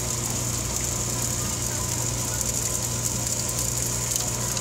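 Chicken frying on a hot flat-top griddle, a steady hiss with faint crackles over a constant low hum.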